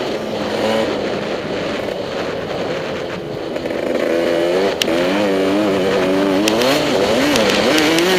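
Motocross bike engine on the track, its pitch rising and falling again and again in the second half as the throttle is opened and shut, with a sharp click about five seconds in.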